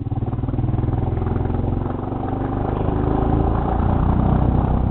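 Motorcycle engine and exhaust running under throttle while riding, a steady rapid beat of firing pulses. The revs ease off about two seconds in, then build again.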